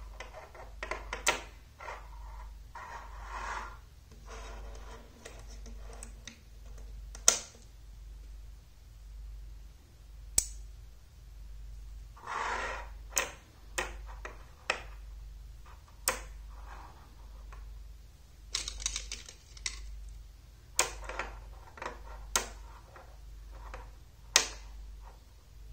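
Magnetic rods and steel balls clicking sharply as they snap together, about ten separate clicks, between softer rattling and scraping of the small metal pieces being handled. A steady low hum runs underneath.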